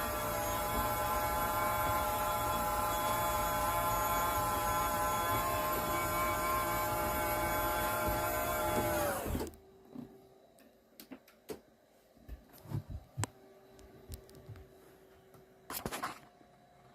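RV slide-out electric motor running with a steady whine, then winding down in pitch and stopping about nine seconds in, followed by a few faint clicks and knocks. The motor is being driven through a winch controller fitted in place of the failed slide controller.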